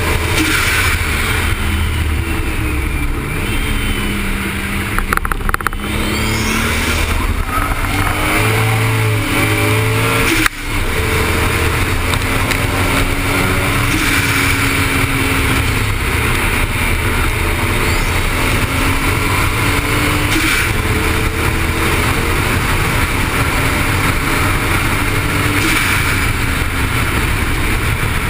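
Toyota Supra's engine at full-throttle track speed, its note climbing and falling as it works through the gears, over heavy wind and road noise. The sound cuts out sharply for a moment about ten seconds in.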